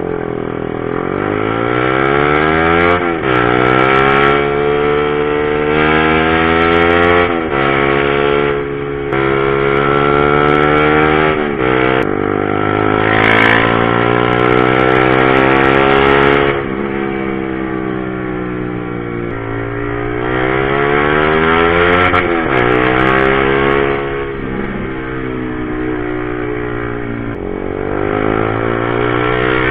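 Honda CBR150R single-cylinder engine accelerating through the gears under riding: the revs climb and drop sharply at each upshift, about four times in the first seventeen seconds, then ease off, rise and fall again in the second half.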